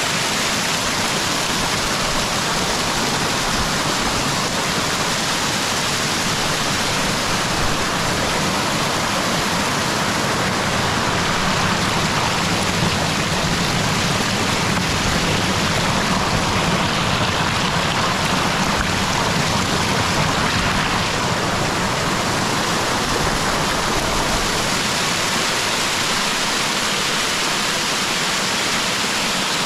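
Small waterfall: water pouring over rocks in a steady, unbroken rush.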